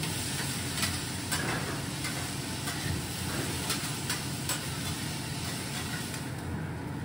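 Egg and chopped vegetables sizzling on a steel flat-top griddle, with a metal spatula clicking and scraping against the plate now and then.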